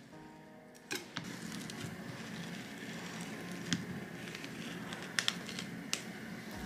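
Kitchen knife slicing along the bones of a hairtail (tachiuo) to take off a fillet: a soft, wet scraping that starts about a second in, broken by a few sharp clicks.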